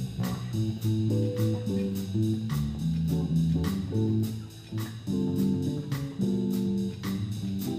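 Electric bass guitar playing a moving line of distinct plucked notes in a jazz combo, with the drums keeping steady time on the cymbals underneath.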